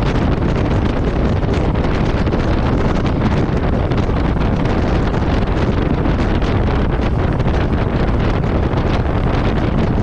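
Royal Enfield Meteor 350's single-cylinder engine cruising at a steady speed, largely buried under constant wind rushing over the microphone.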